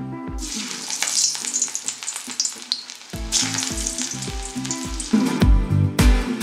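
Radish kofta balls sizzling and crackling as they deep-fry in hot oil in a kadhai; the sizzle starts suddenly about half a second in as they drop into the oil. Background music with a steady beat plays underneath, louder near the end.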